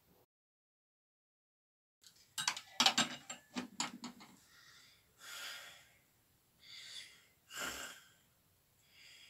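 Dead silence for about two seconds, then a flurry of rustling and clicks, followed by four slow, heavy breaths.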